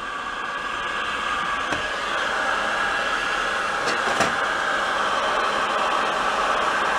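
Electric heat gun running, a steady blowing hiss from its fan, played on a bent lawn mower wheel rim to heat it for straightening. A couple of faint ticks about four seconds in.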